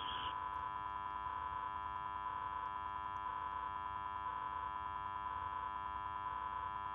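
Steady electrical hum and static on a recorded air traffic control phone line, with a faint pulse about once a second, heard while the call to the tower connects.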